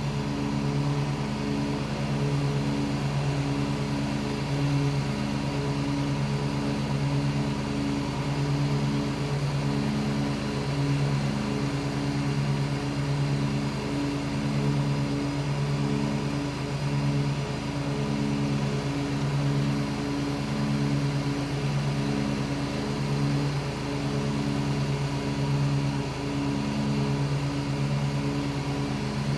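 Ride-on lawn mower's engine running steadily as the mower drives across the lawn, a drone that swells and fades every second or so.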